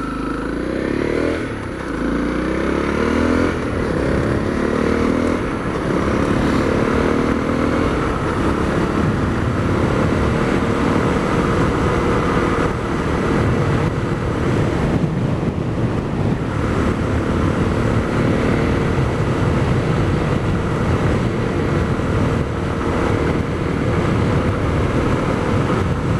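Honda CRF250L's single-cylinder engine with an FMF Q4 HEX slip-on exhaust, revving up and down through the gears for the first few seconds, then running at a steady cruise under a rushing noise.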